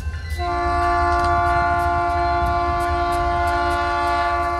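Air horn of a New England Central GP40-2LW diesel locomotive sounding one long, steady chord of several notes. It starts about half a second in and is still held at the end, as the train approaches a grade crossing.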